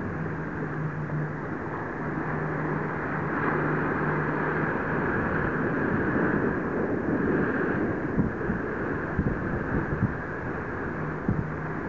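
Steady rush of wind and water with a low, even hum of a boat engine through the first few seconds, coming back briefly near the end. A few short knocks about nine to eleven seconds in.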